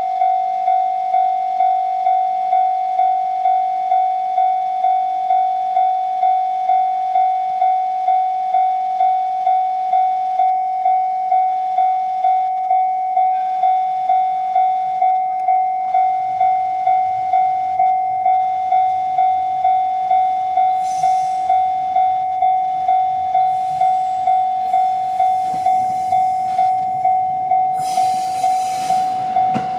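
Japanese level-crossing alarm ringing a steady, evenly repeating electronic ding. Underneath it the rumble of an approaching 701 series electric train builds from about halfway through, loudest in the last few seconds as the train reaches the crossing.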